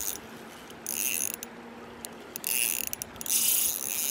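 Fishing reel being cranked in short spurts with pauses between, its gears whirring as a lure is retrieved.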